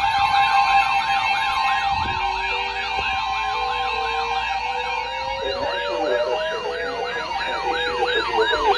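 Sirens: a fast yelping siren sweeping up and down about three times a second, overlapped by a second siren whose pitch rises slowly over several seconds, with a steady tone beneath.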